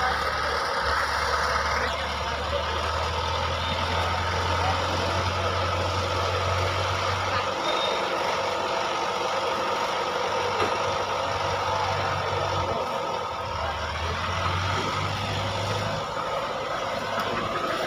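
Mobile crane's engine running steadily while lifting a heavy load, its low hum dropping away about halfway through and coming back twice, under the murmur of a crowd talking.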